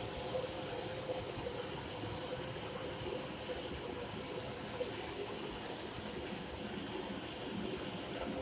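Planetary floor grinder with its vacuum cleaner attached, running steadily as it grinds a floor with 150-grit resin pads. A constant high whine sits over an even rumble.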